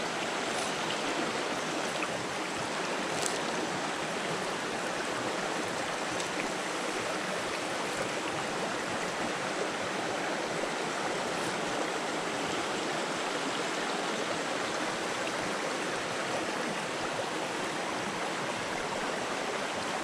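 Shallow mountain stream running over rocks and small riffles: a steady rush of water.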